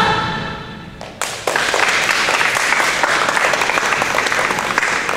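Audience clapping after a sung musical number: the last choral chord fades over the first second, then applause breaks out about a second and a half in and carries on steadily.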